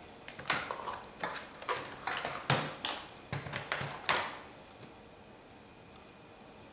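A run of light clicks and knocks as a laptop screen panel in its metal frame and the plastic display lid are handled and turned over on a wooden table, stopping about four seconds in.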